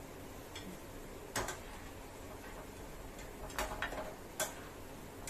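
A metal slotted spatula clinking against a frying pan and plate while fried pakoras are lifted out: a handful of short sharp clicks, one about a second and a half in and a cluster of three between three and a half and four and a half seconds in.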